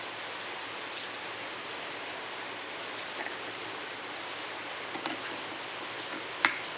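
A steady hiss, with a few light clicks as scooter CVT parts are handled and fitted, and one sharp click near the end.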